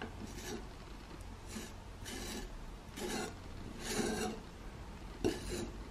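Wet steel filler scraper dragged over polyfiller on the painted wooden door frame, pressing filler into old screw holes. It makes about half a dozen short, faint scrapes.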